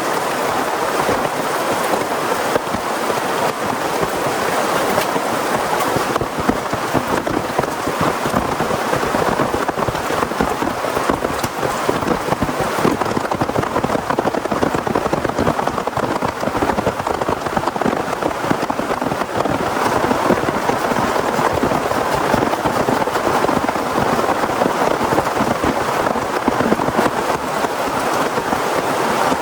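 Heavy rain falling steadily, a dense hiss made of countless drops striking surfaces, even in loudness throughout.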